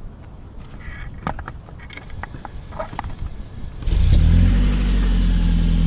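The 2011 Toyota Camry Hybrid's 2.4 L four-cylinder petrol engine, heard at the tailpipe, starts cold about four seconds in and settles straight into a steady idle. A few faint clicks come before it.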